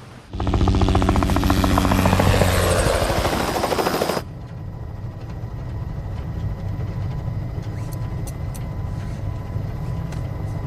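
Helicopter rotor blades chopping rapidly over a low engine drone, loud and close. About four seconds in it cuts off suddenly to a quieter, steady low rumble.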